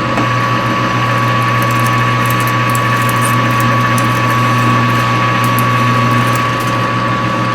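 Metal lathe running steadily at low speed, about 200 RPM, with a steady gear whine over a low hum, while an end mill is fed deeper into the coaster blank.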